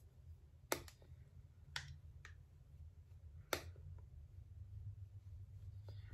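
Four short, sharp plastic clicks and taps from handling a hexagonal plastic powder compact and a powder brush during makeup touch-ups, over a faint low hum.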